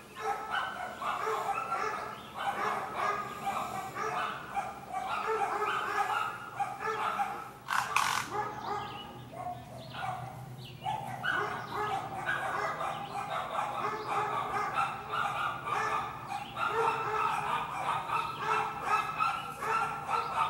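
Dogs barking and yipping over and over, with some whining.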